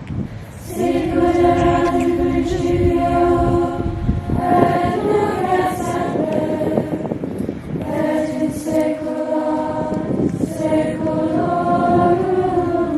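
A choir singing together in slow phrases of long held notes, with brief breaks between phrases.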